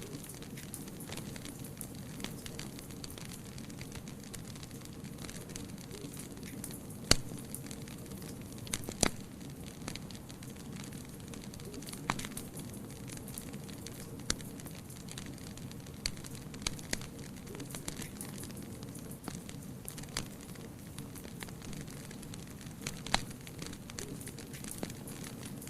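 Wood fire burning in a fireplace: a steady low rush of flames with irregular sharp crackles and pops, a few of them loud.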